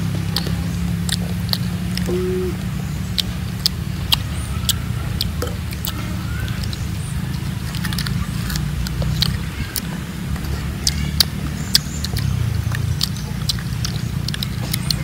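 Close, crisp clicks and crunches of people biting into and chewing firm fruit, scattered irregularly, over a steady low rumble.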